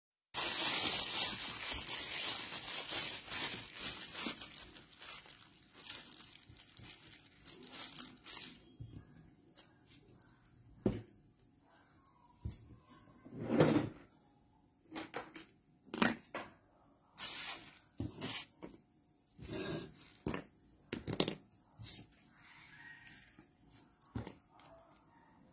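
Rustling and crinkling that fades over the first few seconds, then scattered knocks and clicks.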